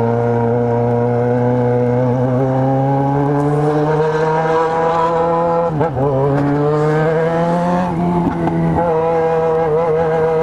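Motorcycle inline-four engine pulling under load from the rider's position, its pitch rising slowly and dropping sharply at a gear change about six seconds in, with another shift around eight seconds.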